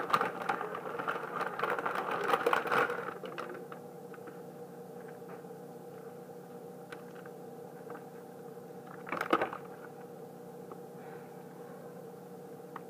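Plastic bag of shredded cheese crinkling and rustling as it is handled, for about three seconds. Then a steady faint hum, with one short rustling noise about nine seconds in.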